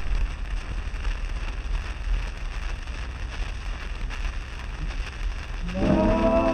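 Surface noise of a shellac 78 rpm record played through an HMV No. 11 gramophone soundbox: steady crackle and hiss with a low rumble as the needle runs in the groove before the music. Near the end the dance band's introduction starts.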